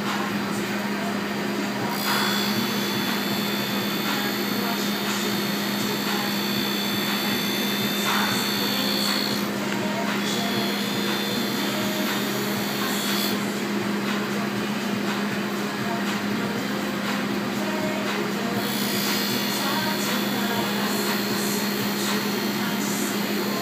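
Tool-and-cutter grinder running with a steady motor hum while a carbide router bit is ground against the spinning wheel; a high whine of the wheel cutting comes and goes with the passes, starting about two seconds in, stopping for a few seconds in the middle and returning near the end.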